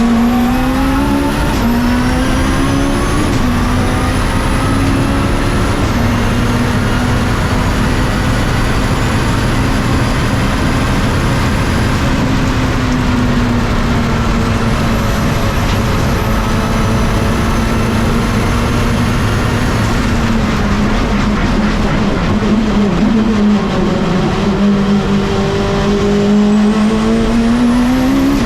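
Time attack Mitsubishi Lancer Evolution race car running hard on track. The engine's pitch climbs and snaps back through several quick upshifts in the first few seconds, then holds high. Near the end the revs drop and climb again.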